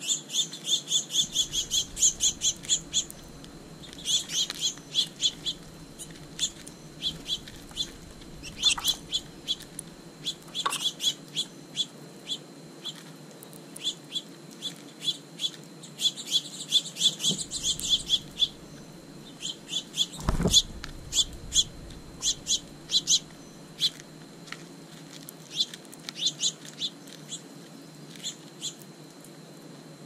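Small songbirds chirping in rapid runs of short, high chirps, with pauses between the runs. One low thump about twenty seconds in is the loudest sound.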